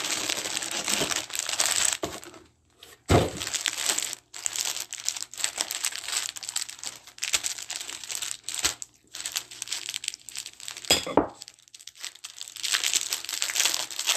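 Plastic packaging and paper crinkling and rustling as items are handled and unwrapped, with two brief pauses.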